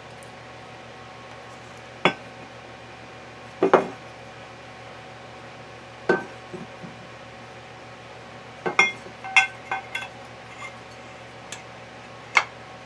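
Metal gearbox parts clinking and knocking as they are handled and fitted together: scattered sharp clinks, some with a short metallic ring, with a quick cluster about two-thirds of the way through, over a steady background hum.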